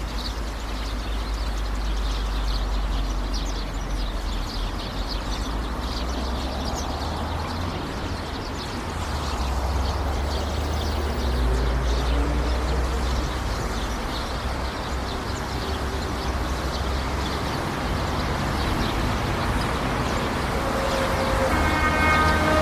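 City street ambience: a steady low traffic rumble with many short high chirps or squeaks over it. A vehicle horn starts sounding near the end.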